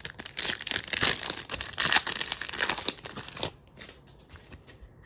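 Foil wrapper of a Topps Chrome trading card pack crinkling and tearing as it is ripped open and handled, a dense crackle that dies down to a few faint clicks after about three and a half seconds.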